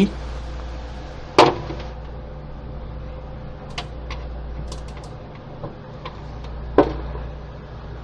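A few knocks and clicks from handling the plastic pet fountain bowl and its small submersible pump, the loudest about a second and a half in and another near seven seconds, over a steady low hum.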